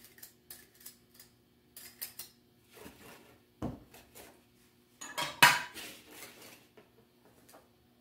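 Kitchen utensils and containers clinking and knocking on a countertop while sauce ingredients are measured and handled: scattered light clicks, a dull thump a little before four seconds in, and the loudest clatter about five and a half seconds in.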